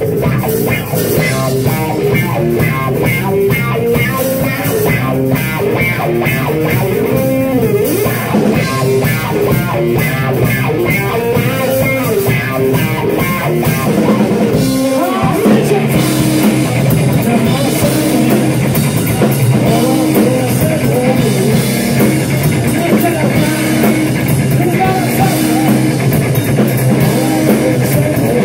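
Live blues-psychedelic rock band playing: electric guitar over a drum kit, loud and steady, with a brief break and a change in the music about halfway through.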